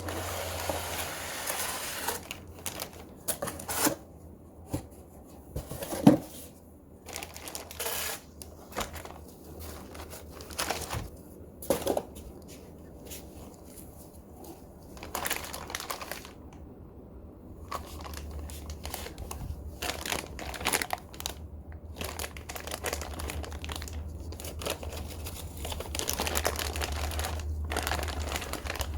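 Plastic and cardboard packaging crinkling and rustling as it is unpacked, with scattered clicks and knocks. A sharp knock about six seconds in is the loudest.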